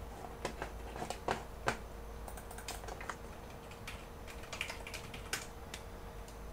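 Computer keyboard typing: irregular key clicks, a few louder strokes near the start, over a low steady hum.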